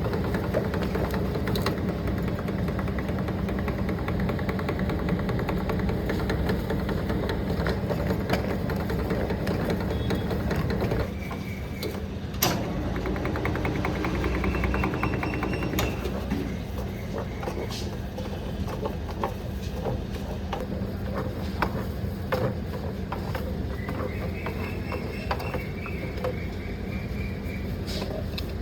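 Ice cream factory machinery running with a steady hum, dotted with sharp clicks and knocks. The sound changes and drops a little about a third of the way in.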